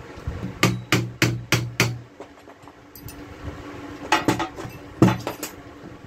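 A steel nail struck with a hammer against a water pump's metal housing to punch a starting mark for drilling: five quick metallic taps about a third of a second apart, then two more short groups of taps later on.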